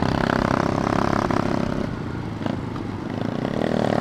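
Motorcycle engine running while riding. Its note is strong at first, drops and quietens about two seconds in, then comes back up near the end.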